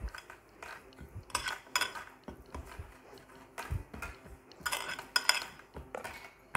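Hands rolling soft dough into a rope on a marble pastry board, a faint rubbing broken by scattered knocks and several sharp, briefly ringing clinks of hard things against the stone board.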